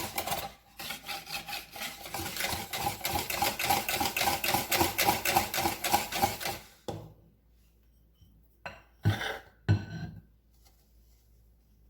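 Whisk beating thick pancake batter in a bowl as flour is worked in, a quick even rhythm of about three strokes a second that stops about seven seconds in. A few knocks of the whisk against the bowl follow.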